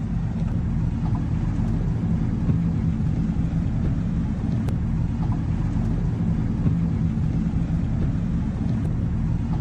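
Truck engine running with a steady low drone, heard from inside the cab, under a steady wash of noise from floodwater and rain on the road.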